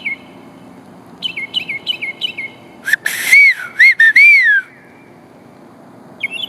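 Northern mockingbird singing: runs of five or so quick repeated falling chirps, one about a second in and another starting near the end. Between them come three loud arched whistled notes, a person's whistled imitation of a whippoorwill that the mockingbird does not copy.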